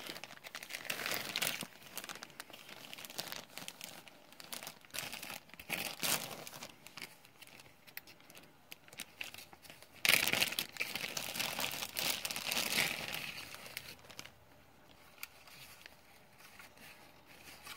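Wrapping being crumpled and torn open by hand in irregular rustling bursts. The loudest stretch comes about ten seconds in, and the rustling dies down to small crinkles near the end.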